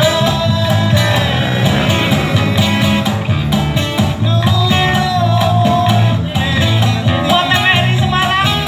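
A live male voice sings into a microphone through a PA, backed by guitars and a cajon beat.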